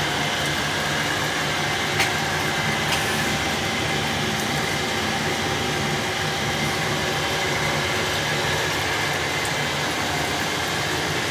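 Steady mechanical hum and hiss, like a fan or motor running, with one sharp click about two seconds in.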